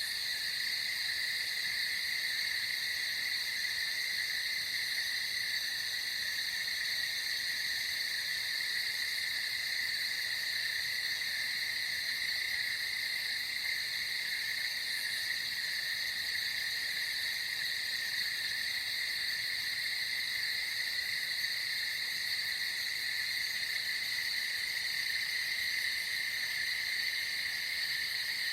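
A steady chorus of many calling frogs, an unbroken high-pitched din that holds the same level throughout.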